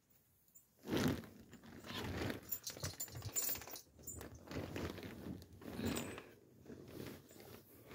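Irregular rustling and clinking of things being handled, starting about a second in and dying away near the end.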